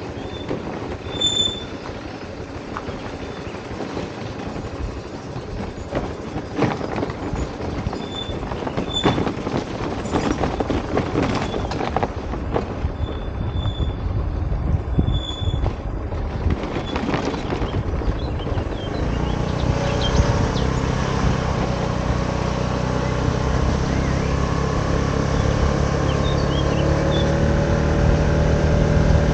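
Motor scooter on the move. For the first two-thirds there is road and wind noise with scattered rattling knocks. Then the engine's steady hum comes up and holds, its pitch rising slightly, to the end.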